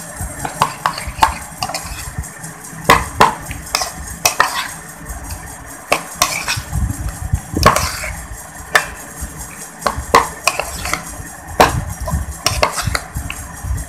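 Steel spoon stirring and mashing chopped vegetables into a wet potato-and-egg mixture in a bowl: irregular clinks and scrapes of the spoon against the bowl.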